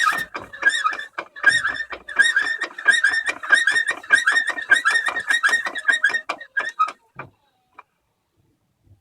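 Peugeot 306 front right CV joint squeaking in a fast run of high chirps as the wheel is turned by hand, stopping about seven seconds in. This is the noise of a dry, worn joint whose boot has been split for a long time, close to failing.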